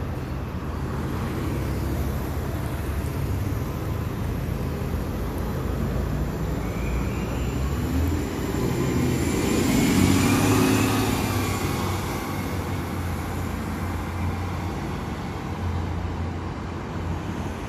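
A 2009 Orion VII NG hybrid city bus pulls away from a stop and passes close by. Its hybrid electric drive gives a whine that rises in pitch as the bus gathers speed, loudest about ten seconds in, over a steady low hum of the bus and street traffic.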